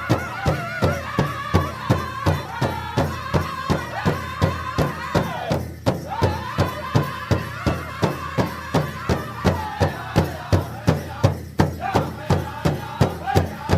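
Native American celebration drumming and chanting: a drum struck in a steady beat, about two strokes a second, with voices singing wavering, high held tones over it. The singing drops out briefly about six seconds in while the drum keeps going.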